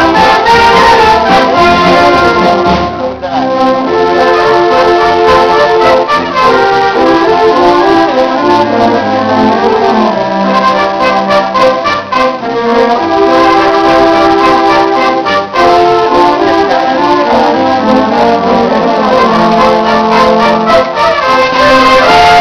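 Marching wind band of saxophones and brass playing a tune, several parts held in harmony.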